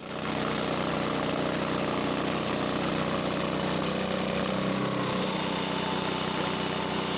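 Portable sawmill's engine running steadily.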